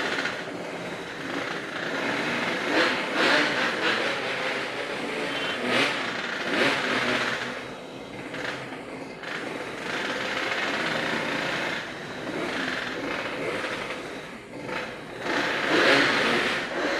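Motorcycle engines running and revving in repeated swells, loudest near the end.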